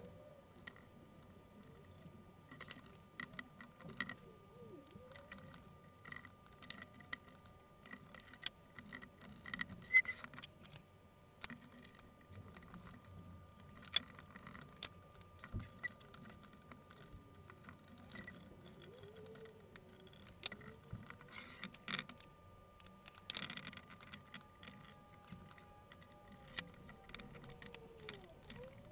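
Hands-on bench work on a wooden chair frame: scattered light clicks, taps and small clinks of tools and parts being handled and set down, with a few faint squeaks, over a faint steady tone.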